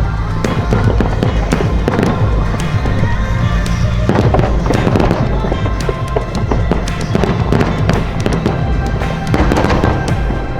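Fireworks bursting and crackling in quick succession, many sharp pops over loud music.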